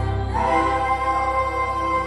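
Music with long held notes, a new note coming in about half a second in.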